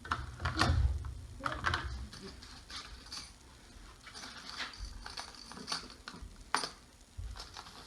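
Scattered clicks and knocks of tools and wood being handled on a workbench, with a heavier low bumping in the first two seconds.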